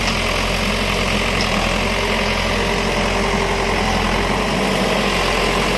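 An engine running steadily at idle, a constant low hum under an even noise, with no change in pace.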